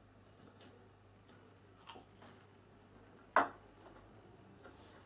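Quiet sounds of a person eating a meal with a knife and fork: faint chewing and a few light clicks of cutlery on a plate, the loudest a single sharp click about three and a half seconds in.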